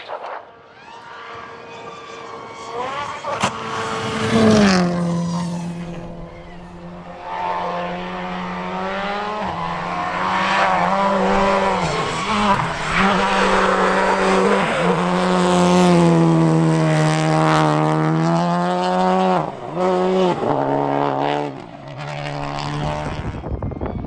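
Rally car engine running hard, its pitch rising and falling with throttle and gear changes. It is quieter for the first few seconds and louder from about four seconds in, with several brief dips in pitch.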